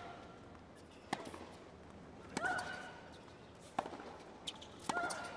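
Tennis ball bounced on a hard court ahead of a serve: sharp knocks a second or more apart, with a couple of short squeaks.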